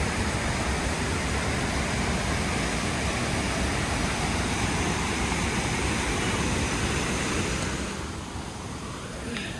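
Waterfall's rushing water, a steady roar that drops somewhat in level about eight seconds in.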